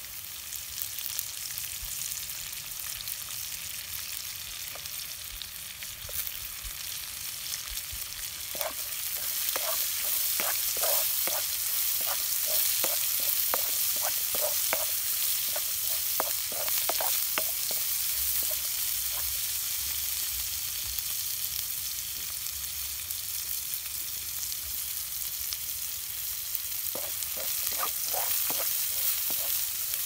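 Chopped chilies and shredded aromatics sizzling in hot oil in a wok, stir-fried with a wooden spatula that scrapes and knocks against the pan in quick strokes, in a run of several seconds in the middle and again near the end.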